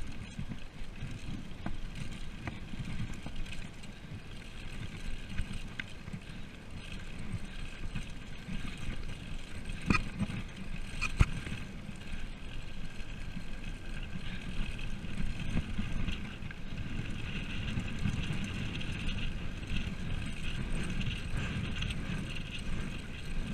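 Mountain bike rolling fast down an unpaved gravel road, with a steady rumble of tyres on stones and wind on the microphone. Two sharp knocks come about ten and eleven seconds in, as the bike jolts over bumps.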